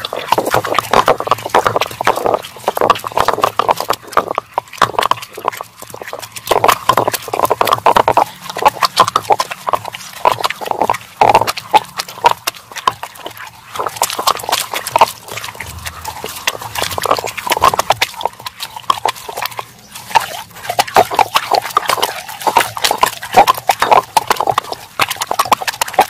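Stone roller of a South Indian grinding stone (ammi kal) worked back and forth over the stone slab, crushing wet kitchen peels into a paste: continuous gritty scraping and crunching with many small knocks of stone on stone.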